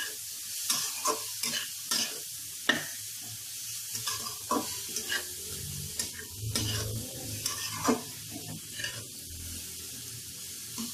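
A spatula stirring and scraping grated cabbage, carrot and onion in a metal kadhai, over a steady frying sizzle. The strokes come irregularly, about one or two a second, and thin out near the end. The momo stuffing is being fried to drive off the cabbage's water.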